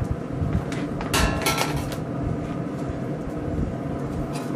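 Metal tongs clinking on a pellet grill's steel grate as chicken wings are set down, a quick cluster of ringing clicks about a second in and a few lighter ones later, over a steady low hum.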